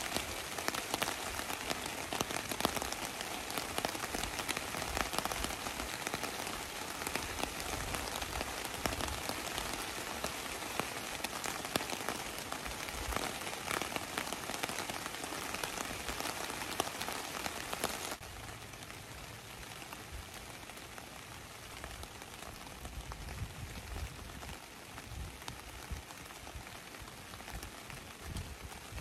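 Heavy rain falling, a dense steady hiss full of separate drop hits. About two-thirds of the way in it becomes suddenly quieter.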